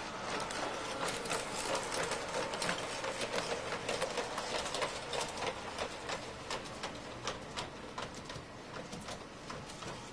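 Small motorized toys in a Christmas village display whirring and clicking, a rapid, irregular clatter over a faint steady whine. The clicks are densest in the first half and thin out later.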